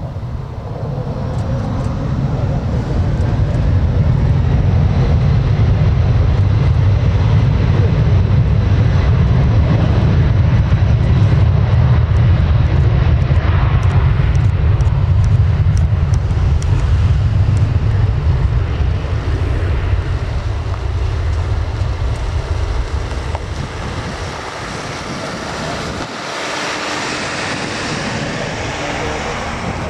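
British Airways Embraer E190SR jet's two turbofan engines at take-off thrust during the take-off roll and lift-off: a deep, loud rumble that builds over the first few seconds and holds for about fifteen seconds before easing. Near the end the deep part drops away abruptly, leaving a thinner, higher jet noise as the aircraft climbs away.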